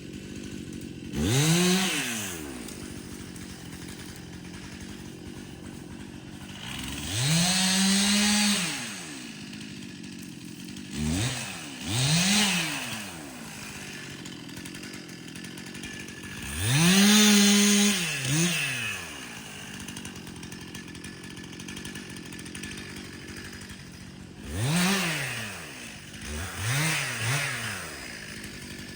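Two-stroke chainsaw idling, revved up several times, each rev rising in pitch, held briefly, then dropping back to idle.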